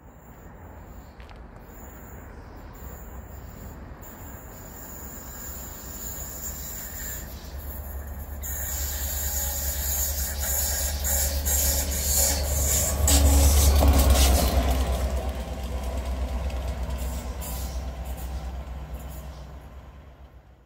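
A light diesel locomotive running through the station with no train behind it. Its engine rumble and wheel noise build as it approaches, are loudest about two-thirds of the way through, then fade as it goes away.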